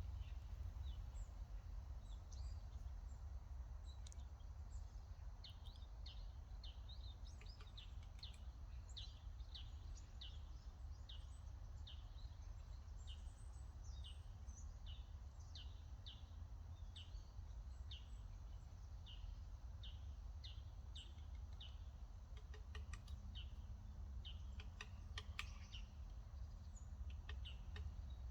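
Songbirds chirping: a run of short, high notes repeated about twice a second, over a steady low rumble. A few sharp clicks come near the end.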